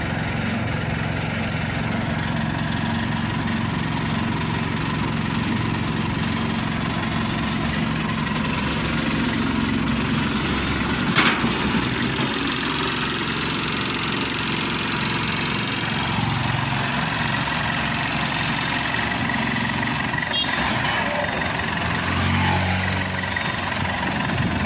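Diesel engine idling steadily, with a single sharp metallic clank about eleven seconds in.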